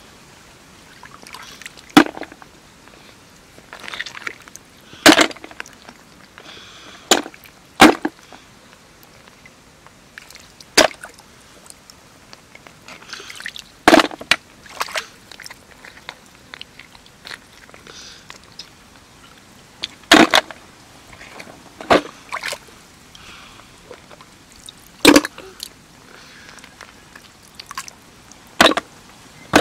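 Hands working in shallow muddy water to catch mud snails. A sharp wet slap or splash comes every few seconds, about ten in all, with quieter sloshing and squelching between.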